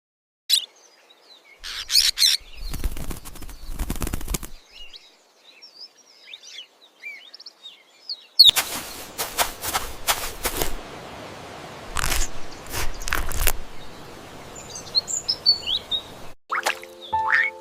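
Birds chirping in short, high calls, broken by several bursts of wing flapping.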